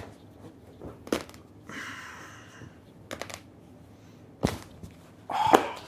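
Knuckle and finger joints cracking: a series of sharp pops, about one a second with a quick double around three seconds in, and the loudest, longest crack near the end.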